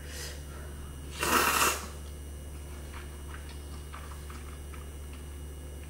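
A loud slurp of ramyun noodles, lasting about half a second, comes a little over a second in. Soft chewing follows, with a few faint mouth clicks.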